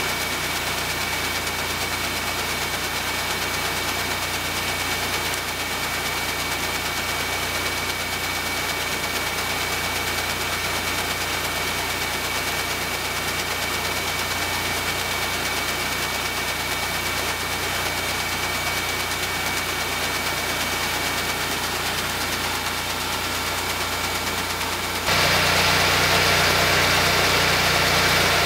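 Grain auger running and loaded, grain pouring in from the bin: a steady engine-like drone with a thin high whine, which steps up louder near the end.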